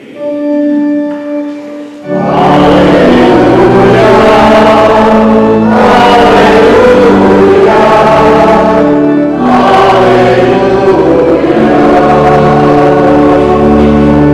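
Choir singing a church hymn with organ accompaniment. A held organ chord opens, and the voices come in loudly about two seconds in, with a short break between phrases about two-thirds of the way through.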